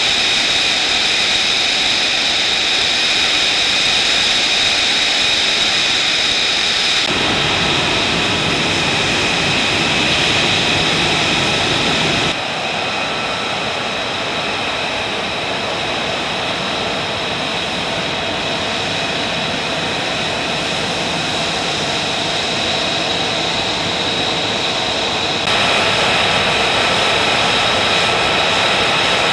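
Turbine engines of F-35B jets and a KC-130J idling: a steady rushing roar with a high, steady whine on top. The mix of roar and whine shifts abruptly three times, about 7, 12 and 25 seconds in.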